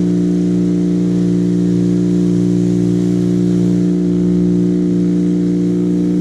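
Pressure washer's motor running steadily with an even hum, the hiss of its water spray faint.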